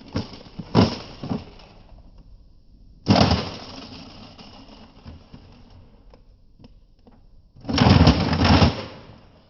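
Nerf Rival Atlas blaster being loaded and handled: a few sharp plastic clicks as the magazine goes in, a loud sudden clack about three seconds in, and a loud noisy burst lasting about a second near the end.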